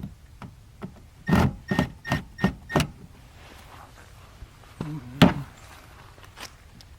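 Five sharp metallic taps with a faint ring, about two or three a second, then one louder knock past the middle: parts being knocked into place while the mounting clamps of an underglow light strip are fitted under a car.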